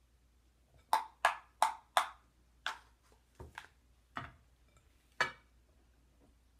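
Measuring cup and spoon knocked against the rim of a glass mixing bowl to tip out flour and baking soda: a quick run of four sharp knocks about a second in, then several scattered single knocks.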